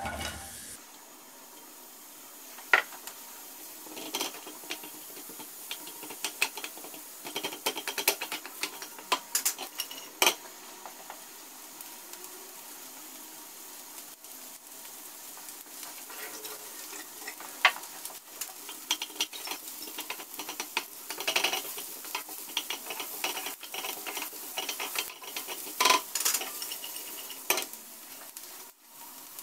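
Chopped onion hits hot oil in a nonstick frying pan with a burst at the start, then sizzles steadily as it softens, with frequent sharp clicks and scrapes of stirring against the pan.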